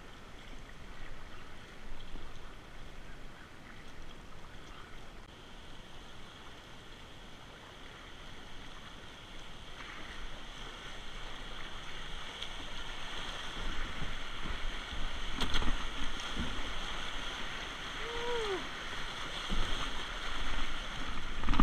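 Whitewater rushing and splashing around a kayak as it runs into a river rapid. The rush grows steadily louder from about halfway through as the boat enters the rough water, with a few sharper splashes near the end.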